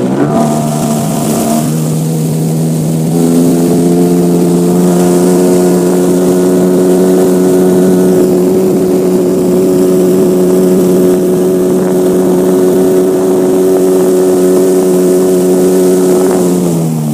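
Small boat's outboard motor running under way. Its pitch steps up twice in the first few seconds as the throttle opens, holds steady, then drops away near the end as the boat slows.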